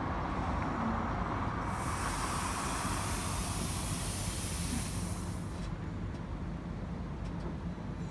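Class 399 tram-train standing at the platform: a loud hiss starts about two seconds in and lasts about four seconds, over a steady low rumble. A few faint clicks follow near the end.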